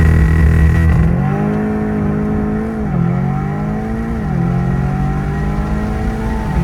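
Tuned Audi S3 8V's 2.0-litre turbocharged four-cylinder, with aftermarket downpipes and catback exhaust, accelerating hard. The engine's pitch climbs and drops sharply at quick upshifts about three and about four seconds in, then climbs again.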